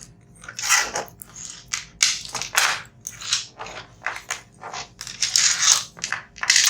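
Irregular crunching and rustling handling noises, a dozen or so short bursts, as wires are handled and fitted to an air-conditioner control board.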